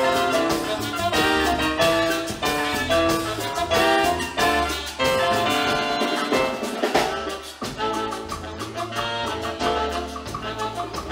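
Latin dance band playing an instrumental passage, with drums and percussion keeping a steady beat under sustained instrument notes.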